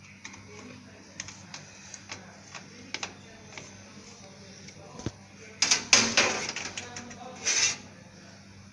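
Scattered light clicks and taps, with a louder rustling scrape about two-thirds of the way in and a shorter one near the end, over a faint steady low hum.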